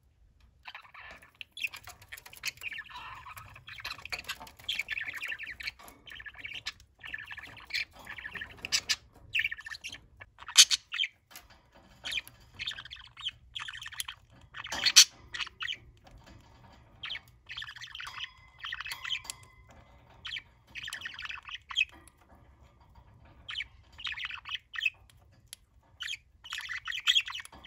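Pet budgerigar and green-cheeked conure chattering with chirps and squawks, in bursts with short gaps. A few sharp clicks stand out, the loudest about ten and fifteen seconds in.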